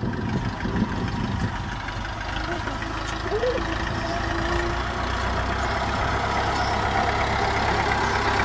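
Farm tractor engine running steadily as the tractor drives through tall grass and comes up close. It grows gradually louder as it nears.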